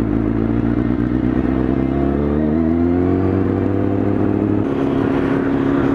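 Sport motorcycle engine running under way, rising in pitch about two seconds in as it accelerates, then holding steady.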